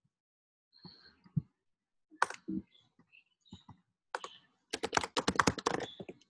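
Typing on a computer keyboard: a few scattered keystrokes, then a quick run of about a dozen keys near the end.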